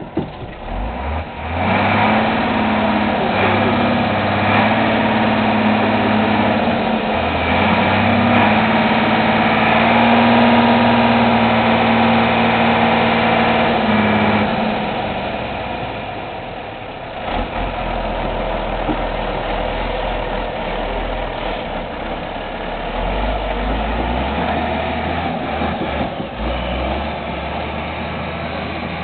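Mercedes-Benz Unimog's diesel engine working under load as the truck pushes a heavy log across a field. Its note comes up about two seconds in and holds high, stepping up and down a few times. About halfway through it drops to a lower, quieter rumble.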